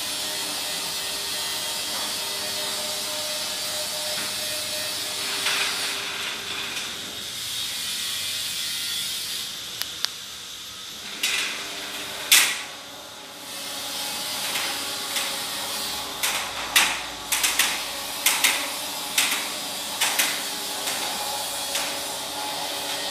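Motorised aluminium grille rolling shutter: a steady hum over hiss as it lowers, then a few sharp clacks as it closes about halfway through. The hum starts again as the shutter rolls up, with a string of clicks and clacks from the slats.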